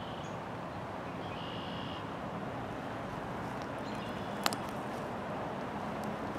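Steady outdoor background noise, with one sharp click about four and a half seconds in.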